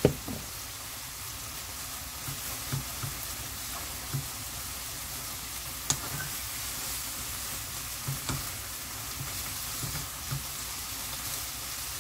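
Young perilla leaf shoots sizzling as they are stir-fried in perilla oil in a nonstick frying pan. A wooden spatula stirs them, with a few light knocks against the pan and a sharper one at the very start.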